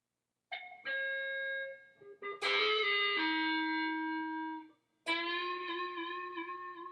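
Electric guitar playing a slow intro, starting about half a second in: a few notes and chords, each let ring for a second or two, with a short break before the last long note.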